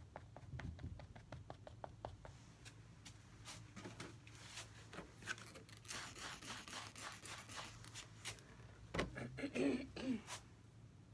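Palette knife working paint on a canvas: quick light ticking strokes at first, then denser scratchy scraping. A few louder knocks come near the end.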